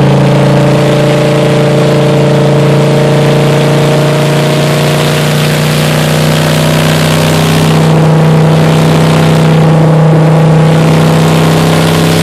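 1957 Chevrolet Bel Air's small-block V8 running straight off the headers with no exhaust pipes, extremely loud inside the cabin as it cruises at a steady highway speed.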